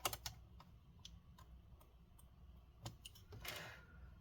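Faint scattered clicks and ticks of a small screwdriver driving screws back into the plastic bottom cover of an Acer Nitro AN515-43 laptop, with a short scraping sound near the end.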